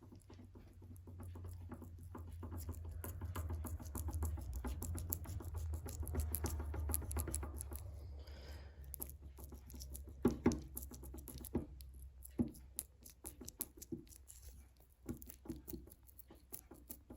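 Worn bearings in a Triumph Spitfire 1500's rear hub and half-shaft assembly being turned by hand. There is a low rumble with rapid, fine clicking that builds for several seconds and then dies away into scattered clicks and knocks. The owner judges the bearings and universal joint knackered.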